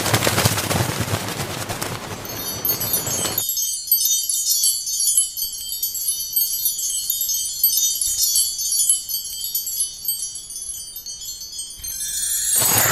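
Loud rushing noise for the first few seconds gives way to a long run of high tinkling chimes, many small bell-like notes ringing together like a wind chime. The rushing noise comes back near the end.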